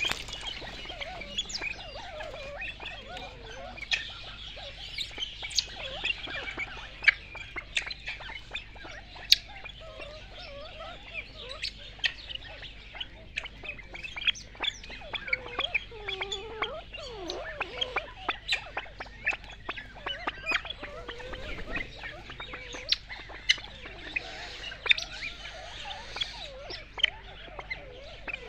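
Birds chirping throughout, with many sharp taps of golden pheasants pecking close by.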